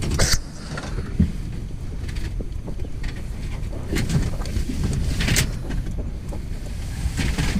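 Wind rumbling on the microphone, with a few short scraping and rustling noises as scrap is pulled from a pile.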